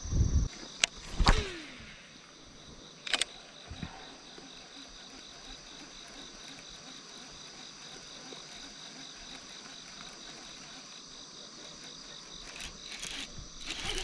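Insects singing steadily in several high pitches, one of them pulsing in a fast even rhythm. There are a few short knocks and thumps in the first four seconds.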